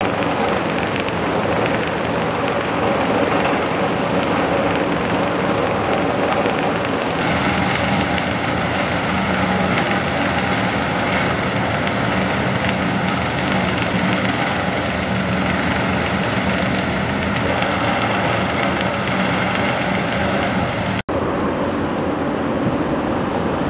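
City road traffic: a steady wash of passing vehicles and engine hum, with a sudden change about seven seconds in and a split-second dropout near the end.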